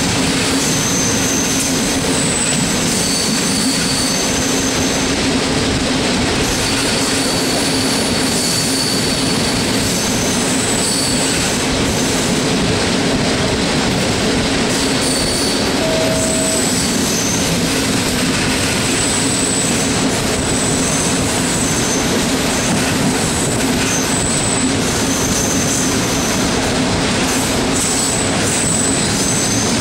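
Passenger coach rolling along the track at speed: a steady rumble of wheels on rails, with short high-pitched wheel squeals coming and going.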